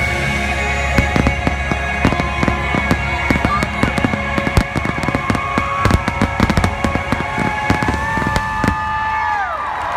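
Aerial firework shells bursting in quick succession, many sharp reports one after another, over loud show music with long held notes.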